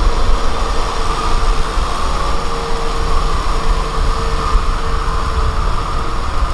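Kubota M6040SU tractor's diesel engine running steadily under load, driving a rear rotavator that churns through wet paddy-field mud: a steady drone over a deep rumble.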